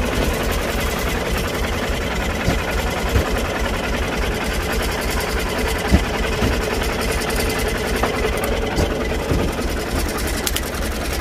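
Ford 4600 tractor engine running steadily while the tractor stands, with a light knock about six seconds in.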